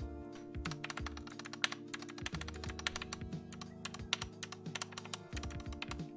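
Lubed keyboard stabilizers under their keycaps on an NK65 PCB, the keys pressed over and over in a dense run of plastic clacks to check how they sound, with a little rattle that the builder puts down to the PCB. Background music plays underneath.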